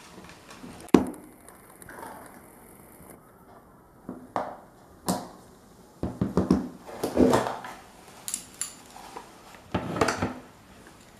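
Hand tools being handled on a workbench: a string of knocks and clatters as pliers and an analog multimeter are picked up and set down. The sharpest knock comes about a second in, with a busy run of clatter around six to seven seconds in.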